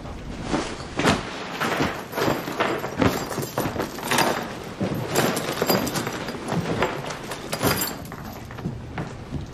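Close handling noise: cloth and a zippered bag or jacket rustling against the microphone, with a fast irregular run of knocks, scrapes and thuds.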